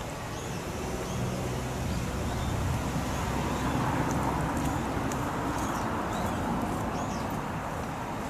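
Road traffic noise with a low rumble that swells about four seconds in as a vehicle passes, then eases off. A few faint, short, high bird chirps sound over it.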